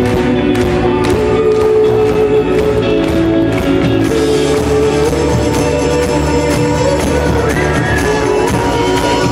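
A rock band playing live in a theatre, with held guitar and keyboard notes over a steady drum beat. The drum strokes are sharpest in the first few seconds, then the held notes take over.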